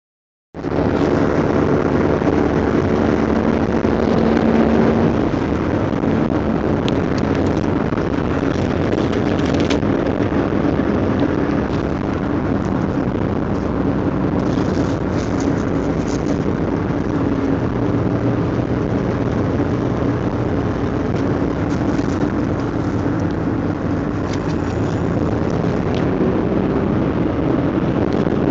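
Engine and road noise inside the cabin of a moving taxi: a steady rumble, with an engine hum that shifts in pitch now and then as the engine speed changes.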